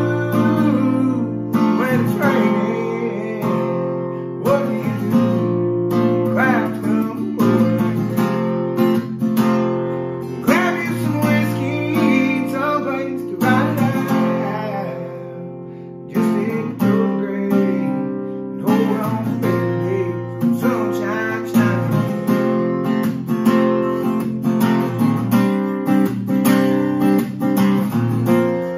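Strummed acoustic guitar with a man singing a country song over it. The playing dips briefly near the middle, then comes back in strongly.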